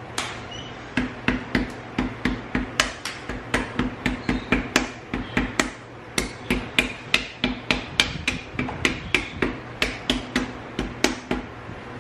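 Small hammer tapping again and again on the thick shell of an ostrich egg, about three sharp taps a second with a brief lull midway, chipping the shell open.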